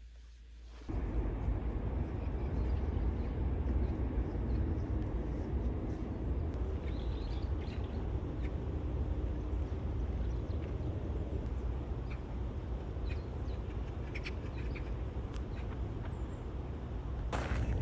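Steady low outdoor rumble with a few short mallard duck calls, about seven seconds in and again later on. Just before the end, footsteps start crunching on snow.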